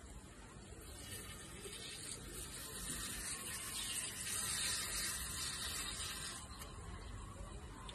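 Water spraying from a lawn sprinkler on the ground, a steady hiss that swells over the first few seconds and eases off near the end.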